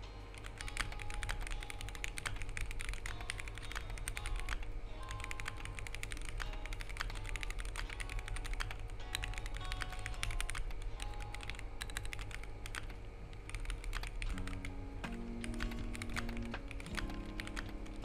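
Fast, continuous typing on a Monsgeek M1 mechanical keyboard with a POM plate and ASA-profile PBT keycaps: a dense run of key clacks that starts about a second in, over background music.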